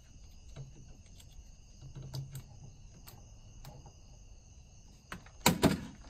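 Plastic clicks and rubbing as a power plug and extension cord are handled at a wall outlet, with a loud cluster of sharp clicks and rattling about five and a half seconds in.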